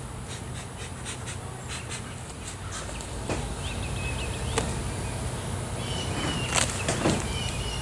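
Birds chirping in short bursts over a steady low hum, with a few sharp knocks, the loudest two near the end.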